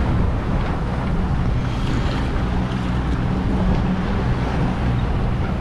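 Sailboat under way with its engine running, a steady low drone under the rush of wind and water.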